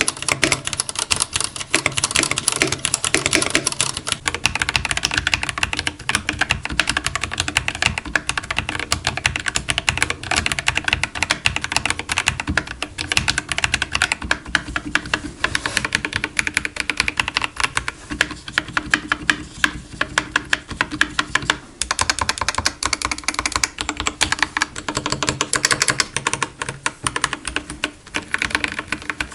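Fast, continuous typing on a Dark Project KD87A mechanical keyboard with factory-lubed Gateron Cap Teal switches: a dense run of key clacks, with two brief pauses near the middle and near the end.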